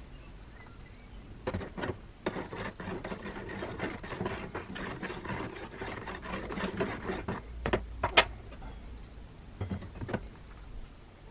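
A metal spoon stirring briskly in a plastic tub of water, clicking and scraping against the sides for several seconds. Near the end a few sharp clicks follow as the spoon is set down and a rusty circular saw blade is lowered into the water.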